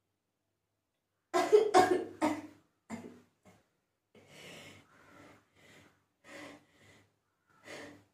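A person coughing and clearing their throat: a quick run of three or four sharp bursts about a second in, then a couple of smaller ones, then faint breathing, while trying to bring on a sneeze that doesn't come.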